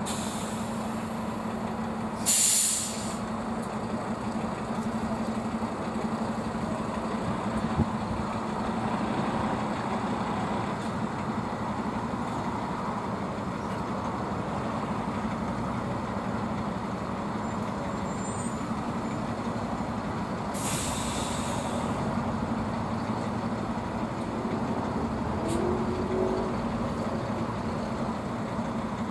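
Heavy trucks' diesel engines running steadily as a slow convoy rolls past, with two short, loud air-brake hisses: one about two seconds in and another about twenty seconds in.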